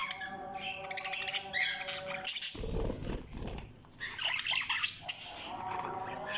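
Budgerigars chirping and squawking in quick, high, chattering calls, with a low rustling noise about halfway through.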